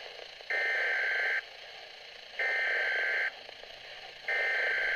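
Broadcast emergency alert tones: three high-pitched beeps, each just under a second long and about two seconds apart, over a hissy radio-like background, marking the start of a weather alert bulletin.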